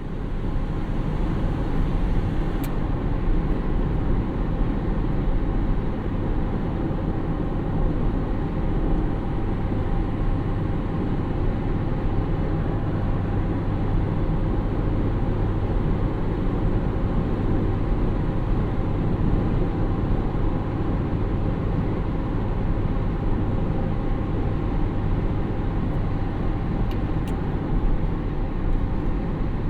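A car running at a steady, unchanging pace: a constant low engine hum under an even rush of noise.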